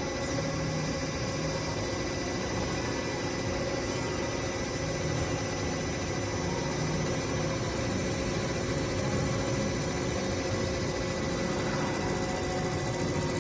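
CNC machine running steadily: an even mechanical hum and whir with several steady tones over a constant noise, unchanging throughout.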